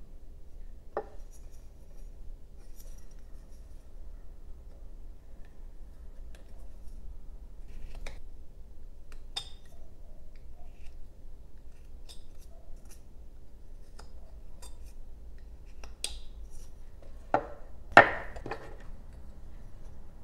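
Carving knife paring a small basswood block: scattered short scrapes and crisp clicks as thin shavings are sliced off. Near the end come two louder knocks of a hard object against the wood or the bench.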